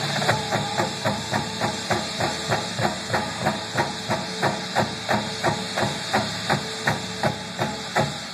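Drum and bugle corps rehearsing on the field: a steady pulse of sharp ticks, about two and a half a second, keeps time over a faint held note, and stops just before the end.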